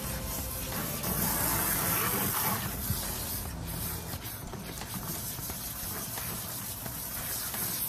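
Garden hose spray nozzle spraying water onto a soaked dog's coat, with the runoff splashing into a plastic kiddie pool: a steady hiss that is louder for a second or so near the start.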